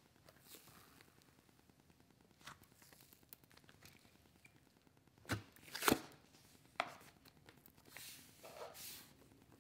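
Thick, creamy slime being poked, pulled and stretched by hand, giving faint sticky tearing sounds and a few sharp pops, the loudest about six seconds in.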